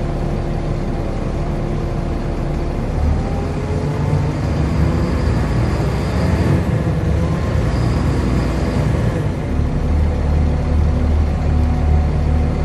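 Volvo B7LA bendy bus under way, its engine note rising twice as it pulls, about three and seven seconds in, over a steady heavy rumble that grows stronger near the end. A thin high whine comes and goes through the middle.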